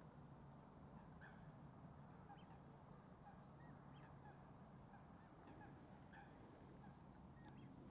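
Near silence, with short, faint, scattered calls of distant waterfowl over a low steady hum.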